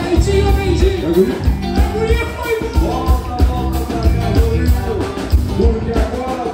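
Live gaúcho band playing a lively number: piano accordion leading over a drum kit and electric guitar, with a steady beat.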